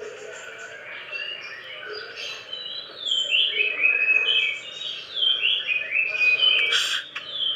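Songbird singing a rapid string of short, sharp, falling whistled notes, louder from about three seconds in, with a brief noisy burst near the end. The bird is recovering from a cough ('kik'), which has become very rare.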